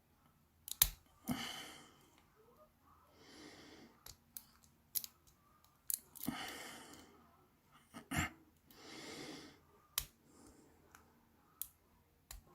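Lock picks working in the keyway of a Master Lock 140 padlock: sharp, scattered metal clicks every second or so, the loudest about a second in. Soft breaths come every two to three seconds in between.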